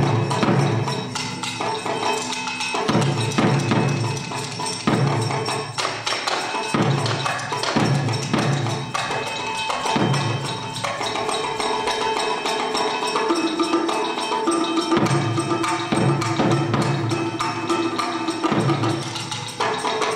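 Percussion-led music: drum and wood-block strikes every second or two, with held tones coming in during the second half.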